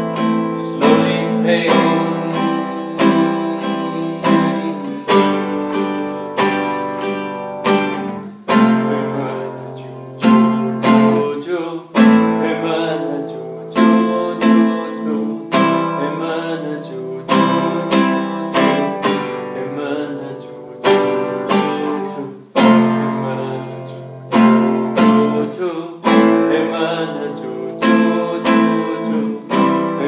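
Acoustic guitar strummed in a steady rhythm, a chord-driven instrumental passage with no singing over it.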